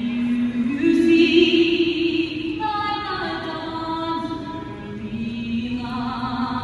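A teenage girl singing a national anthem solo and unaccompanied into a microphone, amplified through an arena's sound system, holding slow, long notes.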